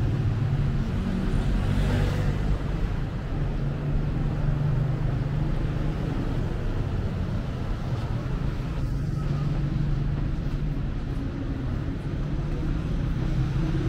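Motor traffic: a steady low drone of vehicle engines.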